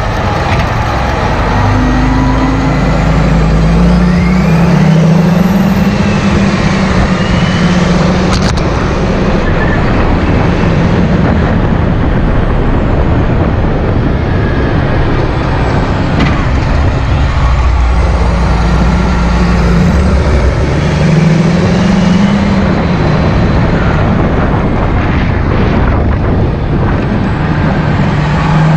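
John Deere 8430 tractor's six-cylinder diesel engine running while the tractor drives along the road. Its note rises and falls several times as engine speed changes.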